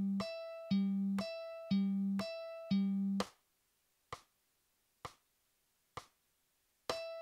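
Tab-software playback of a mandolin picking exercise: open E and open G strings alternating in even eighth notes, about two notes a second. The notes stop about three seconds in for a bar's rest marked by three metronome-like clicks about a second apart, then the picking starts again near the end at the new tempo of 65.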